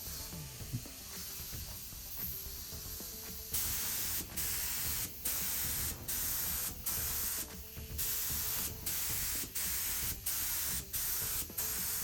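Compressed-air paint spray gun spraying in short hissing bursts, about a dozen quick trigger pulls in a row starting a few seconds in, as coats are laid on a fiberglass test panel.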